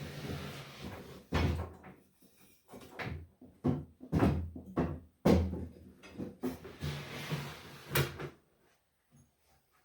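Benchtop power tools and gear being shifted around on wooden shop carts: a run of irregular thumps, clunks and scrapes that stops about a second before the end.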